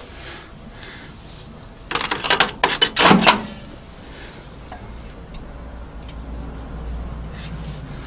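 Microwave door being opened: the door release and latch give a quick run of sharp clicks and clunks about two seconds in, lasting about a second and a half.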